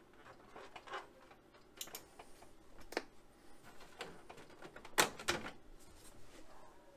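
Clicks and knocks of the Apple Lisa's front plastic bezel being handled and pulled off its case, with a loud pair of snaps about five seconds in as the bezel comes free.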